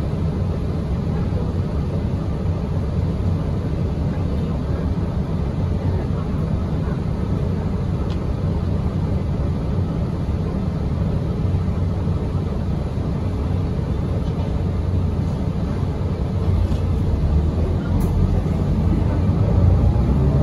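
Steady low engine and road rumble inside a 2017 Gillig BRT transit bus while it is under way, growing louder over the last few seconds.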